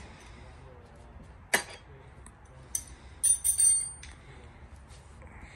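A steel hex key clinking against a bolt and metal: a sharp click, another a second later, then a quick cluster of bright metallic clinks with a short ringing.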